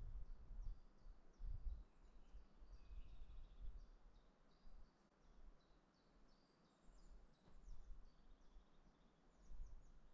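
Faint birdsong: many short, high chirps and trills from several small birds, over an uneven low rumble that comes and goes.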